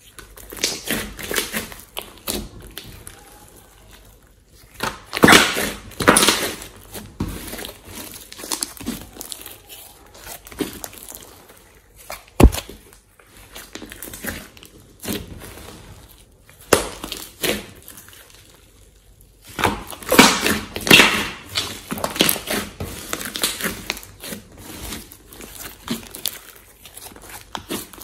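Thick clay-mixed slime being stretched, squeezed and pressed by hand, giving irregular wet, sticky squishing and crackling noises, heaviest in two spells about five seconds in and again about twenty seconds in. One sharp snap about twelve seconds in.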